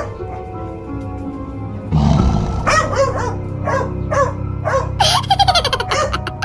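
Background music with a dog barking several times over it, starting about two seconds in, with a quick run of barks a little after the middle.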